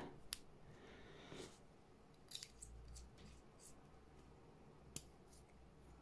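Near silence with a few faint, short clicks and scrapes of a small metal pen being handled as a rubber O-ring is worked onto it.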